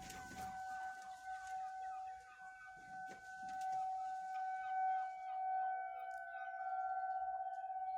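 Federal Signal 2001 outdoor warning siren sounding its single steady tone, holding one pitch throughout.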